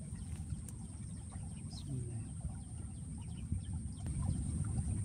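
Quiet outdoor ambience: faint, scattered bird calls over a low rumble, with a steady high-pitched whine running through.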